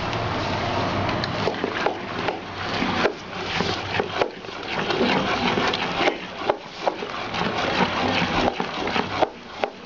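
Wooden spoon beating thick cake batter in an aluminium pot, with irregular knocks and scrapes against the pot several times a second. A steady low rumble in the background drops away about three seconds in.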